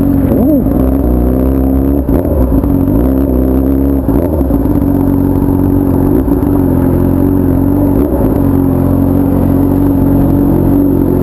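Honda Hornet motorcycle with a 3-inch aftermarket exhaust running at low revs; the engine note wavers up and down over the first few seconds, then settles to a steady low note.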